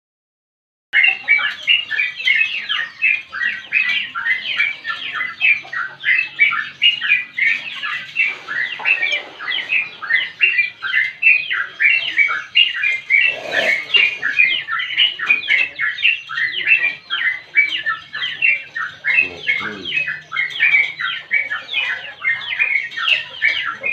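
Yellow-vented bulbul (trucuk) singing a long, unbroken run of quick chattering notes, several a second, the bird in full song. It starts after a brief silence at the very beginning.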